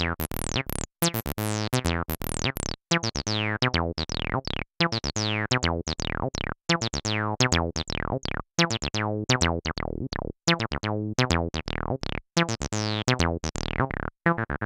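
Behringer TD-3 analog bass line synthesizer, a Roland TB-303 clone, playing a sequenced sawtooth acid bassline of short notes with brief gaps. Each note carries a falling filter sweep as the cutoff, resonance, envelope and decay knobs are turned. The resonance never screeches, because the TD-3 cannot self-oscillate.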